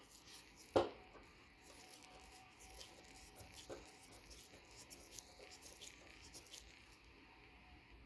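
Faint handling noises of small hardware being worked on by hand: scattered light clicks and ticks, with one sharp click about a second in and a softer one a few seconds later.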